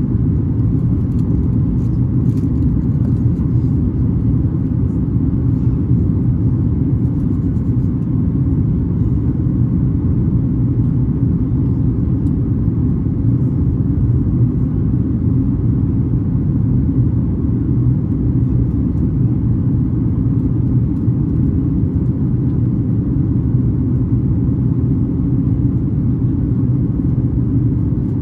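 Cabin noise of a Boeing 737 MAX 8-200 airliner in flight: a steady low rumble of engines and airflow heard from inside the passenger cabin.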